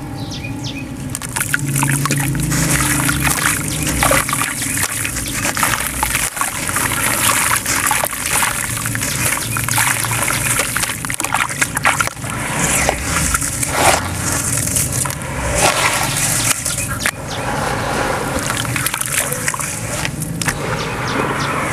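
Hands crumbling gritty sand-cement powder into a water-filled basin of black grit and stirring it: steady wet sloshing and trickling, with many small crunchy crackles throughout.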